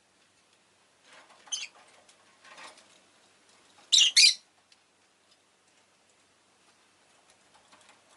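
Rosy-faced lovebird giving short sharp chirps: one about a second and a half in, then a loud quick pair near the four-second mark, with soft rustling before them.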